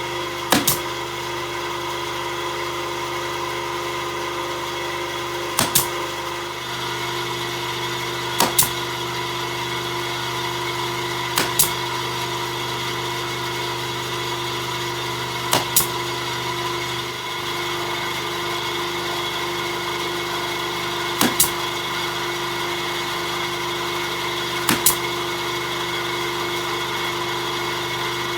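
Nail gun pinning roof battens, firing seven times at intervals of several seconds; each shot is a quick double crack. A steady machine hum runs underneath.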